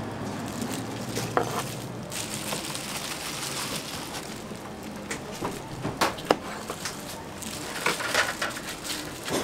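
Kitchen knife slicing boiled offal on a plastic cutting board: irregular sharp knocks of the blade striking the board, several close together near the end, over a steady background hiss.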